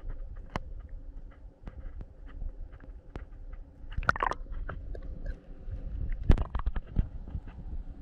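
Scattered knocks and clicks of gear being handled on a kayak, over a steady low rumble of wind and water. There is a cluster of clicks about four seconds in, and the loudest knock comes a little after six seconds.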